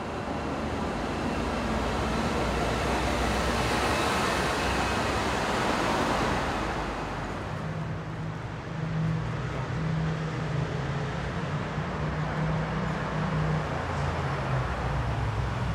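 Street traffic: a vehicle passing, its noise swelling and then fading away about six or seven seconds in, followed by a low steady hum.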